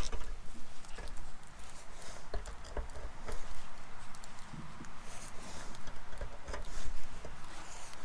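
Rain pattering on the chicken coop's roof, with scattered light ticks.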